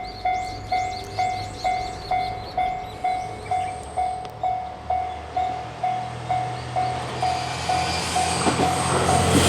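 Japanese railway level-crossing warning bell ringing a steady electronic ding about twice a second. Near the end the bell stops as the rumble of an approaching train swells, the Hamakaze limited express, a diesel multiple unit.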